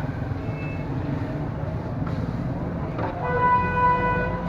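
Steady low rumble of street traffic, with a vehicle horn sounding once for about a second near the end.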